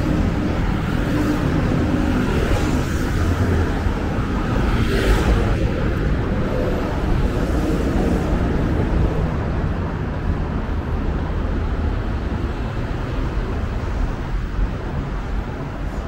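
Steady city road traffic: cars and motorcycles running past on a multi-lane street. One vehicle passes louder about five seconds in, and the traffic drops off slightly near the end.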